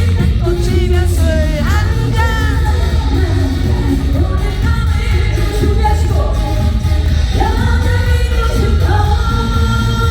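Trot song: a female singer's voice over a backing track with a steady, heavy bass beat, ending on a long held note.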